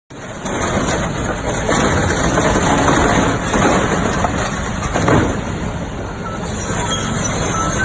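Excavator's diesel engine running under load while it tears apart an aircraft's metal, with rough scraping and crunching and a couple of louder crunches in the middle.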